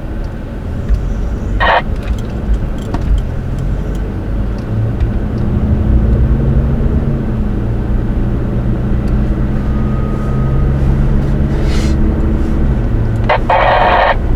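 Engine and road noise inside a moving vehicle's cabin, the engine note rising slightly about five seconds in. A short burst from the CB radio's speaker comes about two seconds in and another near the end, as the scanning radio picks up traffic.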